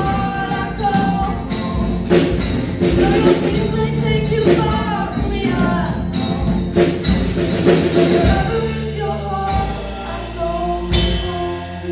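Live band playing a rock song: a woman's lead vocal over strummed acoustic guitar and drum kit. Near the end a last struck chord with a cymbal hit rings on and fades.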